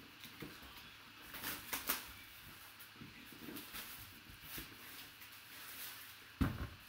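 Clear plastic shrink wrap crinkling and crackling in short bursts as it is peeled off a cardboard box, with a single thump near the end.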